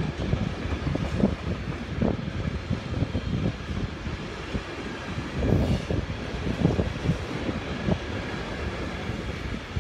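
Freight train of container flat wagons rolling past on the rails: a steady low rumble with frequent irregular wheel knocks and clatter.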